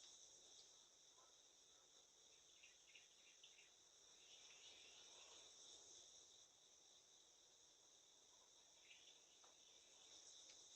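Faint, steady chorus of insects: a continuous high-pitched trill with a few light ticks.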